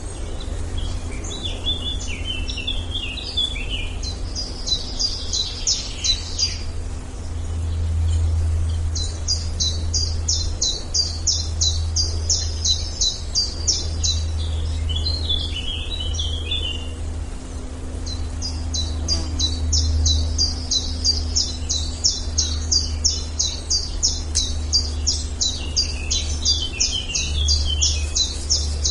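Forest birdsong: a bird repeating quick, high notes, several a second, in long runs, with other birds twittering a little lower between the runs. A steady low rumble lies underneath.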